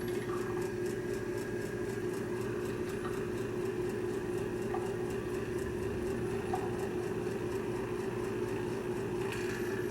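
Electric A/C vacuum pump running with a steady hum, its gauge manifold valves shut while the A/C system is checked for holding vacuum.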